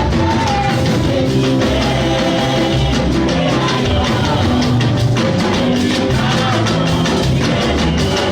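Upbeat band music with a drum kit keeping a steady beat under a melody line.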